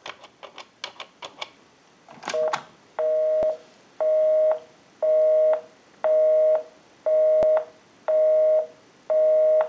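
Touch-tone keypad buttons clicking as a number is dialed, then the telephone busy signal: a low two-note beep pulsing on and off about once a second, showing the called line is busy.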